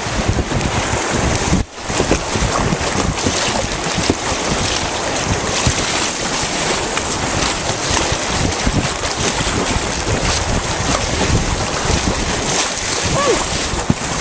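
White water rushing around an open canoe running a small river rapid, with the paddle splashing at each stroke and spray thrown up. Wind buffets the microphone over it.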